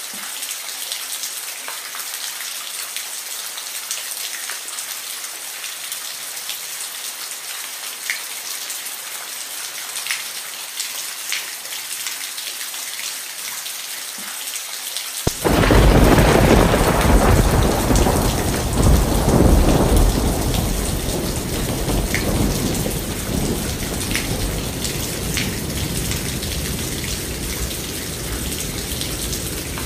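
Steady rain falling, with scattered drops ticking. About halfway through, a loud clap of thunder breaks in suddenly and rolls on as a deep rumble that fades slowly over the next ten seconds or so, with the rain continuing under it.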